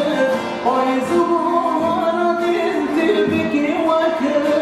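A man singing a Kurdish song in long, wavering held notes, accompanying himself on a saz (long-necked Kurdish lute).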